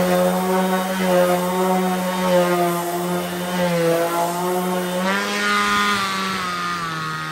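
DeWalt 20V MAX brushless cordless orbital sander (DCW210B) running: a steady motor hum whose pitch sags and recovers a little now and then.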